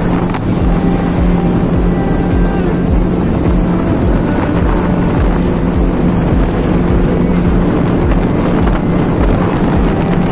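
Speedboat engine running steadily with an even hum as the boat travels across the lake, with wind buffeting the microphone.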